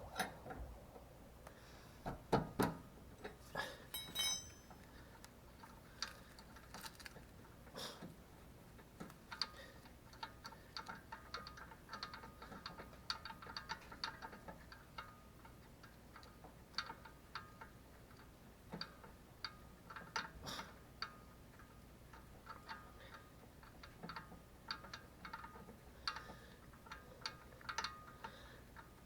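Faint, irregular clicks and light metallic ticks, scattered and sometimes coming in quick clusters.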